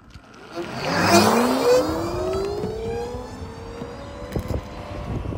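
Zero DSR electric motorcycle accelerating: its motor whine rises steeply in pitch and then levels off as it holds speed. A louder rush of noise comes about a second in.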